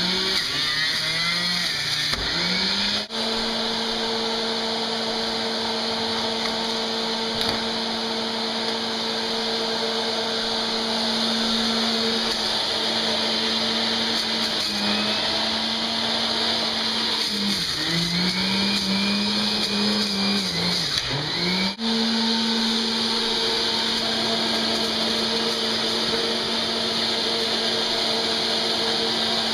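Breville Juice Fountain Elite centrifugal juicer running with a steady high motor hum. Twice the motor's pitch sags and wavers as vegetables are pushed through under load: in the first few seconds, and for several seconds past the middle. Each time it comes back up to speed.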